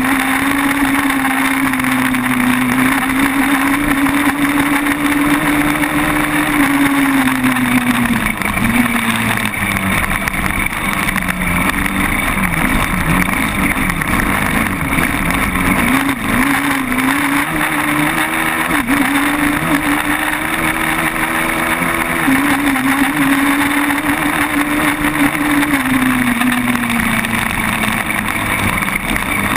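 Sport quad bike's engine running under throttle, heard close up from on board the moving ATV. Its pitch holds steady, drops off about a quarter of the way in and again near the end as the throttle eases, then climbs back.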